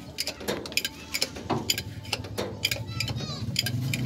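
Hydraulic bottle jack being worked by hand, giving a run of sharp metallic clicks at about four a second. A low hum comes in about one and a half seconds in and grows louder.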